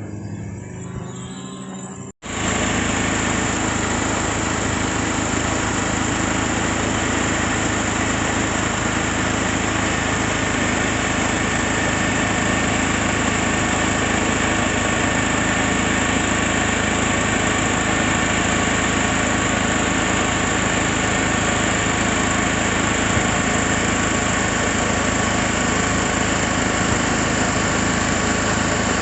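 Small petrol engine of lawn-care machinery running steadily at constant speed. After a brief dropout about two seconds in, it starts abruptly and is much louder than the quieter engine sound before it.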